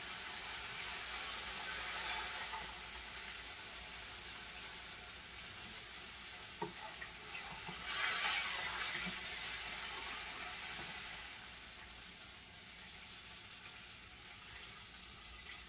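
Chicken livers deep-frying in hot oil: a steady sizzle with a few faint pops, swelling louder about eight seconds in. The livers have been pierced, which keeps the popping down.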